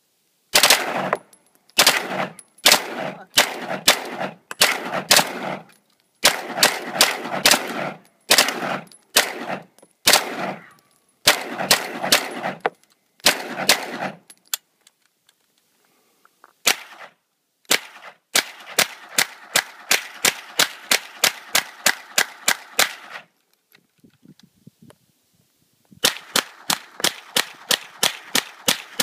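Semi-automatic firearm fired in rapid strings of shots, each string trailing off in echo. Later come long, evenly paced runs of about four shots a second.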